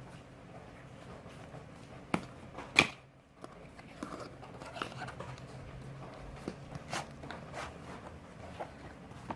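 A phone's retail box and its packaging being handled and worked open by hand: scattered rustles and taps, with two sharp snaps about two and three seconds in, the second the loudest.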